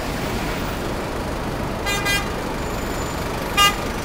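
Steady city street traffic noise, with car horn honks: a quick double toot about two seconds in and a single short, louder honk near the end.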